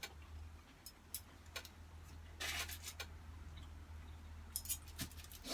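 Eating sounds at a meal table: scattered faint clicks of cutlery and two brief rustles, about halfway through and near the end, over a steady low hum.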